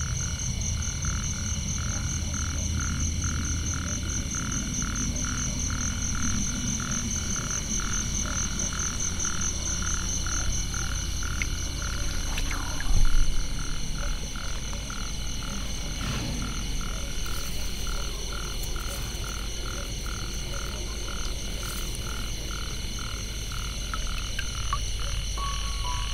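Frogs calling at night, a regular series of short croaks at about two a second, over a steady high-pitched trill. A brief louder knock about halfway through.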